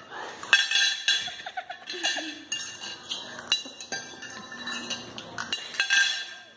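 Steel fork and knife clinking and scraping against a ceramic plate in quick, irregular strikes as the food is cut and scooped up.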